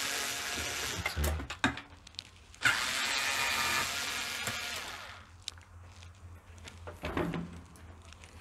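Cordless drill-driver with a Torx T15 bit backing screws out of a dishwasher door, running in two spells of about two seconds each. After it stops there are a few light clicks.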